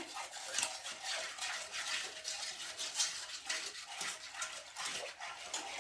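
A utensil clinking and scraping against a bowl in quick, irregular strokes while the pastry-cream ingredients are mixed together.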